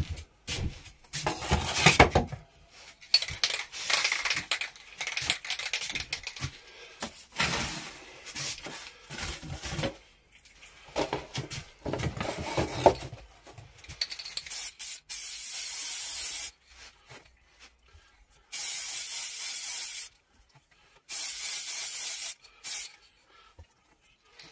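Rustling and knocking of cardboard being handled and set in place, then an aerosol can of sanding sealer spraying in three steady hissing bursts of one and a half to two seconds each.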